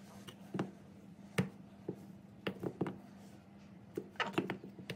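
Scattered light knocks and taps, about ten in all with a quick cluster near the end, from kitchen handling as cubed butter is dropped into a mixer bowl. A faint steady hum runs underneath.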